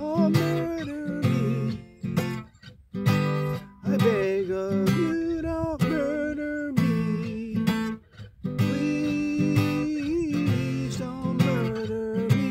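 Acoustic guitar strummed, with a few brief stops where the playing drops out.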